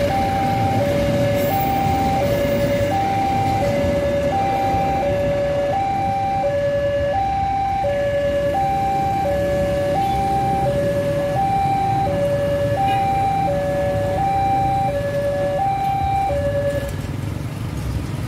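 Railway level-crossing alarm sounding a two-tone electronic chime, alternating high and low about once every second and a bit, that stops about 17 seconds in as the crossing clears. Under it runs the low rumble of a freight train of flat rail-carrying wagons rolling past.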